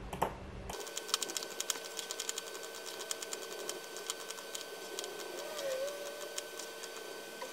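Rapid, irregular clicking of a computer mouse selecting areas to erase, over a faint steady electrical hum.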